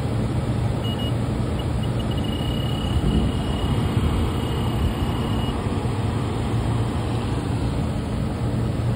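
Fieldpiece DR82 infrared refrigerant leak detector sounding its audible tone: a few short high beeps that run together into a steady high tone for about four seconds, then stop. Under it, a steady low mechanical hum and rushing noise is the loudest sound throughout.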